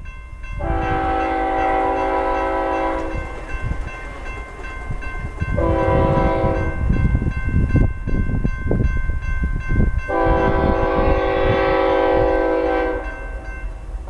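CSX freight locomotive's air horn sounding several notes at once: a long blast, a short one, then another long blast, over the low rumble and clanking of the moving train. A thin steady ringing runs underneath.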